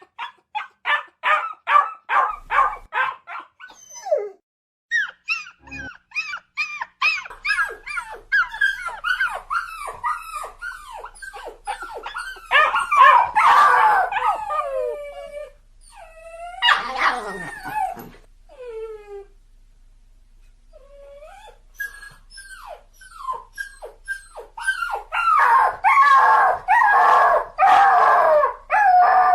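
Dog crying and whining in a long string of short, high-pitched whimpers that mostly fall in pitch. It opens with a quick, even run of cries, about four a second. Later the cries crowd together and overlap, with a few longer drawn-out howling wails among them.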